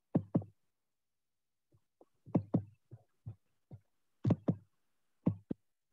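A scattered series of short, sharp thumps or knocks, mostly in close pairs about a fifth of a second apart, with silence between them.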